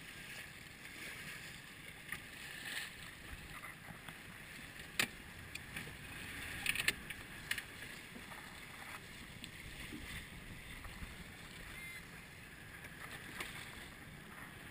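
Water rushing and splashing against the hull of a moving inflatable boat, with wind on the microphone. A few sharp knocks or slaps stand out around five and seven seconds in.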